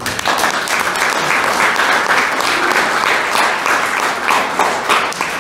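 Audience applauding: many people clapping at once, starting suddenly and keeping up a dense, even clatter.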